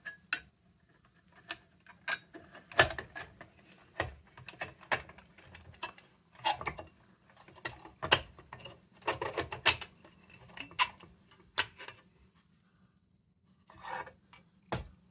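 Sheet-metal lantern parts being handled and fitted together by hand: irregular light metallic clicks, taps and knocks with scraping and rubbing between them, falling quiet for a moment near the end.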